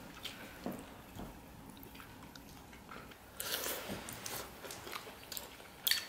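Close-up eating: chewing and biting food, with a few light clicks of wooden chopsticks against ceramic rice bowls, the sharpest near the end.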